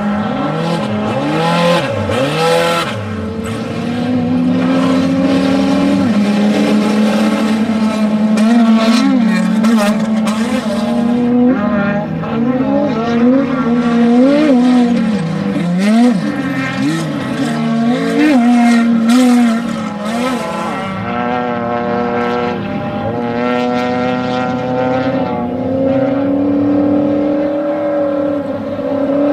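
Off-road desert race vehicle engines running hard, the pitch rising and falling again and again as they rev up and come off the throttle.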